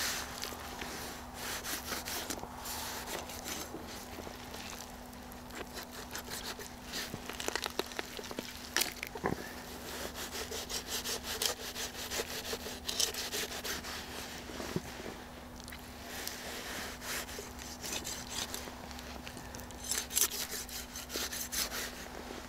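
Large knife cutting up a whole raw chicken on a wooden board: rasping slicing strokes through skin and joints, with many short sharp clicks as the blade works through the bird and knocks the board.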